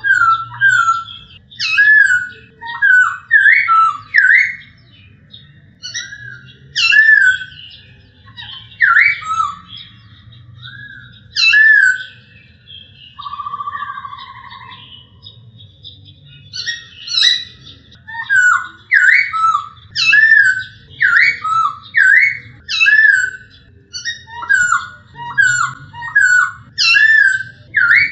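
Black-throated laughingthrush singing: loud, clear whistled notes in quick series, with a lull about halfway through where a quieter, lower trill sounds, then a fast run of whistles again. A faint low hum lies underneath.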